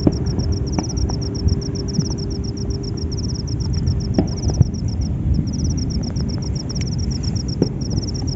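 Wind buffeting the microphone with a low rumble, while an insect chirps in rapid, evenly spaced high pulses that break off briefly about five seconds in. A faint steady hum and a few small clicks lie underneath.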